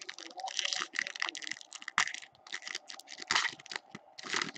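Foil wrapper of an Upper Deck Ice hockey card pack crinkling and tearing as it is opened by hand. It is a string of irregular crackles, loudest in a few bunches.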